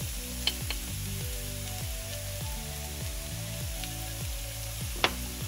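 Chopped onion and mixed vegetables sizzling steadily in a non-stick frying pan as turmeric powder is spooned in, with a few sharp clicks near the start and again near the end. Background music with a steady beat plays over the frying.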